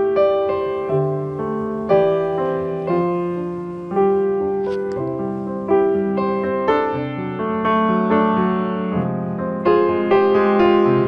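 Background piano music: slow notes and chords, each struck and left to fade, about one a second.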